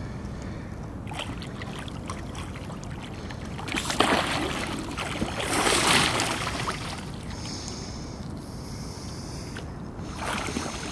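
A hooked wels catfish thrashing at the surface right beside an inflatable boat during the fight, with two loud splashing surges about four and six seconds in over steady water noise.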